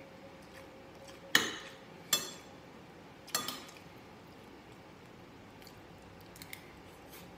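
A metal spoon clinking against a glass bowl three times, each strike ringing briefly, the first the loudest; two faint ticks near the end.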